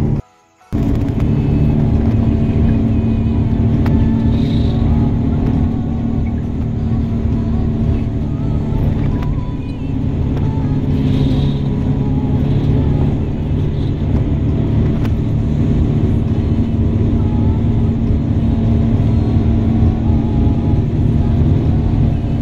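Engine and road noise of a moving vehicle heard from inside it: a steady low drone that drops out briefly about half a second in, then runs on evenly.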